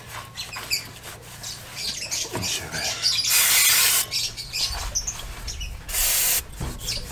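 Aerosol can of brake cleaner sprayed onto a flywheel in two short hisses: one of under a second about three seconds in, and a shorter one about six seconds in.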